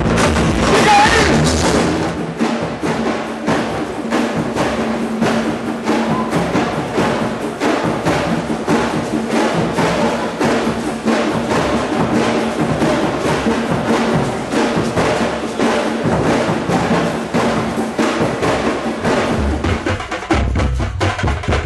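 Music with a steady, fast percussion beat of light knocking strokes over a sustained low note.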